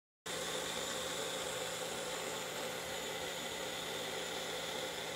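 Magic Bullet personal blender's motor starting abruptly and running at a steady whir with a low hum, blending chopped garlic and cooking oil into a paste.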